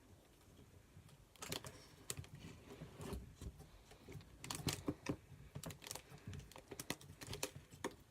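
Slime being squished and poked by hand, making faint, irregular small clicks and pops.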